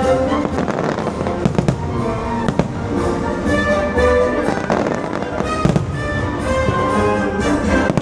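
Fireworks bursting in a string of sharp bangs and crackles, over the fireworks show's music soundtrack.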